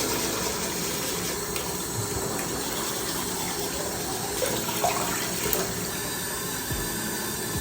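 Bathroom tap running steadily into a sink, with a few small splashes from washing up.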